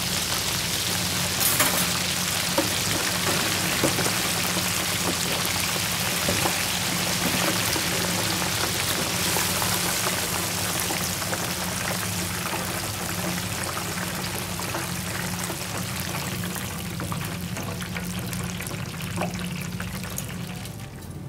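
Shrimp deep-frying in hot oil: a steady sizzle with scattered small pops, over a low steady hum.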